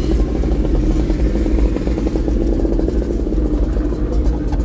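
A vehicle engine running steadily at an even speed, a constant low rumble with no revving.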